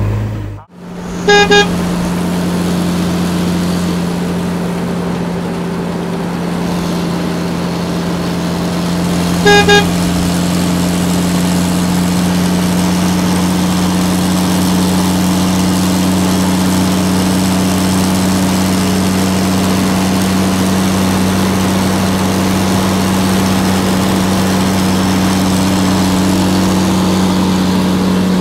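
Diesel tractor and truck engines running in a steady drone. A vehicle horn gives a short double toot twice, about a second and a half in and again about eight seconds later.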